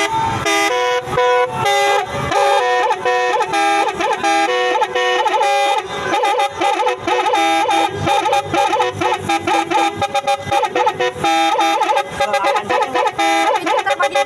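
Indonesian 'telolet' bus horn, a set of multi-tone horns, playing a fast, choppy tune of short notes that jump between pitches, with several tones sounding together: a strange-sounding telolet.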